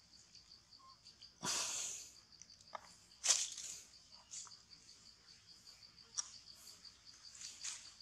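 Insects chirping in a steady, fast, high-pitched pulse, with a few short hissing bursts over it. The loudest burst comes about a second and a half in, and a sharper one just after three seconds.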